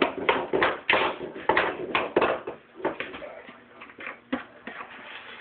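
A quick run of sharp taps, about three a second, that thin out and grow fainter about halfway through, with a few scattered knocks after.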